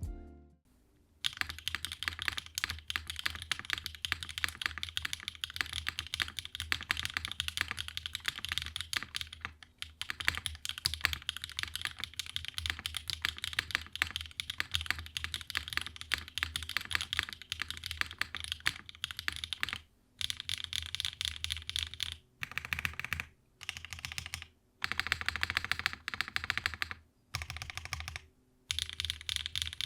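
Typing on a mechanical keyboard with factory-lubed HMX Gravel linear switches (POM stem, PA66 nylon bottom housing, 50 g spring), in a TGR x GSK 910 with an o-ring-mounted aluminium plate and GMK keycaps. Steady fast typing for most of the first twenty seconds, then shorter runs of keystrokes separated by brief pauses.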